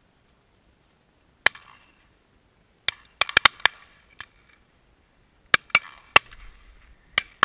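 Shotguns firing at driven partridges: about a dozen sharp shots in quick clusters, some loud and near, others fainter from guns farther down the line, each with a short echo.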